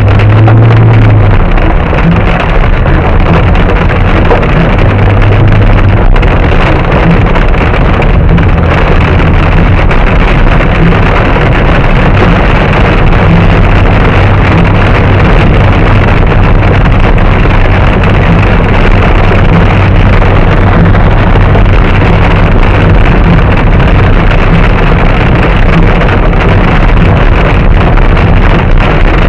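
Heavy storm rain beating on a moving car, heard from inside the cabin as a loud, unbroken din over the low hum of the engine and tyres on the wet road.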